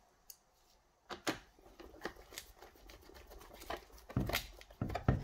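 Handling noises on a metal workbench: scattered clicks and knocks as hands move a plastic electric chainsaw and pick up its power cord and plug, with a few heavier thumps near the end.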